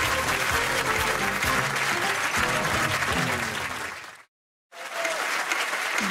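Studio audience applauding over the show's theme music. About four seconds in, the sound fades to a moment of complete silence at the break cut, then music and applause start up again.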